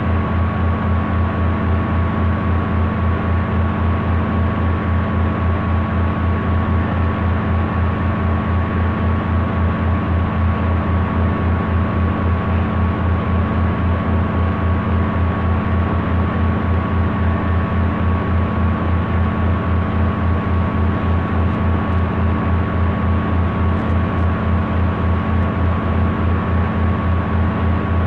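A steady, loud, low mechanical drone that throbs with a fast, even pulse. A thin steady tone sits above it.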